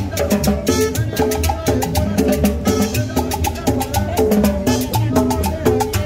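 Live salsa band playing. Congas and timbales keep a busy, even percussion beat under bass and melodic notes.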